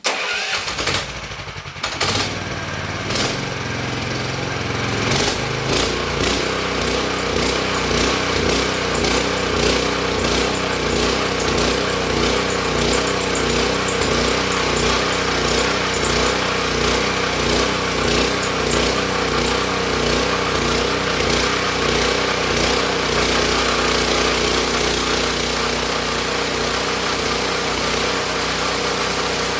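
The homemade sawmill's engine cranked and starting: it catches at once, runs unevenly for the first couple of seconds, then settles into a steady run.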